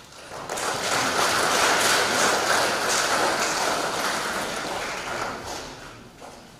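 Congregation applauding: the clapping starts about half a second in, holds for a few seconds and dies away near the end.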